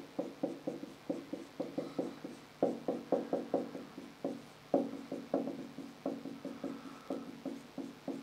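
Marker writing on a whiteboard: a quick, irregular run of taps and strokes, about three or four a second, each with a short ring from the board.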